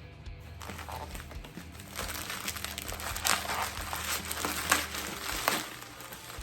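Plastic packaging being crinkled and torn open by hand, a dense crackling with sharp snaps that grows louder after about two seconds.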